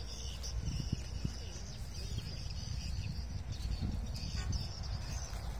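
Wind buffeting the microphone as a steady low rumble, with faint high chirping over it, strongest at the start and again near the end.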